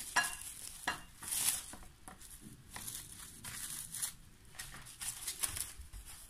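Plastic cling film crinkling and rustling as hands gather it tightly around a stacked bread loaf, a run of irregular crackles.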